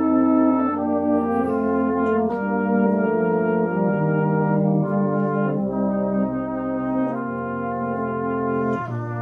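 Brass band playing a slow hymn tune in held chords, moving to a new chord every second or two.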